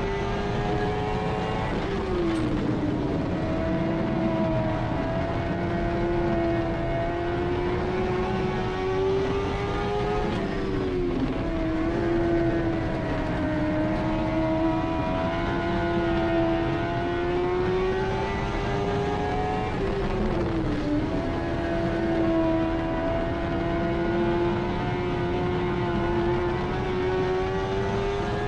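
Dirt-track race car's engine at racing speed, heard from inside the cockpit: its pitch climbs slowly along each straight and dips sharply as the throttle lifts into the turns, about every nine to ten seconds.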